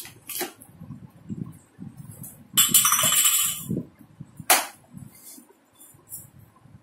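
Hard plastic parts of a toy kitchen set being handled and fitted together: a few sharp clicks, with a loud rasping scrape lasting about a second near the middle, over soft handling knocks.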